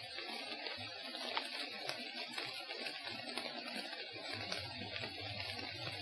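Forest field recording with the steady hiss of light rain and scattered small ticks and crackles. From about four seconds in, a low steady hum joins.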